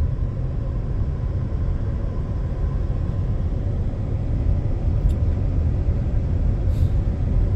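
Steady low rumble of a car's road and engine noise heard inside the cabin, driving at low speed in heavy expressway traffic.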